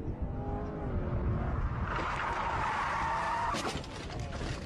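Chevrolet Corvette V8 engine revving hard, then the tyres squeal loudly in a slide from about two seconds in. A few sharp knocks come near the end.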